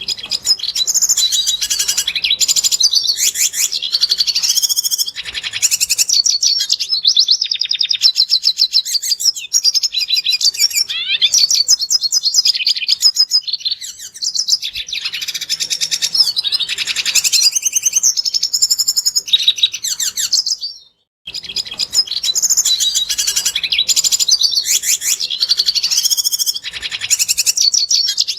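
Red siskin singing a fast, nearly continuous twittering song of rapid trills and buzzy notes, high-pitched, broken by one brief gap about three-quarters of the way through.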